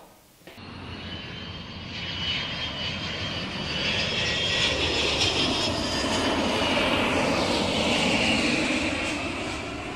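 Airplane flyby sound effect: a rushing engine noise with a faint high whine, starting about half a second in, swelling to a peak about seven or eight seconds in and easing off near the end.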